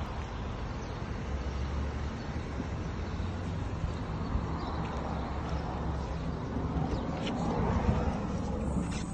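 Car interior noise: engine and road noise heard from inside the cabin, a steady low hum under a rushing noise.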